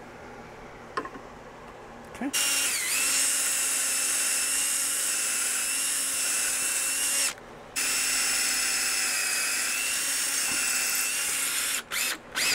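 Cordless drill drilling into an antique screwdriver's handle. It spins up with a rising whine about two seconds in and runs steadily for about five seconds. It stops briefly, runs again for about four seconds, then gives two short bursts near the end.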